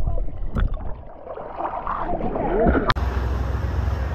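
Muffled underwater bubbling and gurgling, heard with the microphone under the water. About three seconds in it cuts off abruptly to a steady low rumble with wind noise on the microphone.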